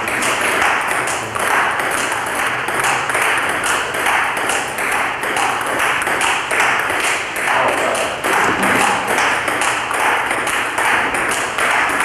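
Table tennis rally of forehand strokes: a celluloid ping-pong ball clicking off the paddles and bouncing on the table in a quick, steady rhythm, over a constant hiss.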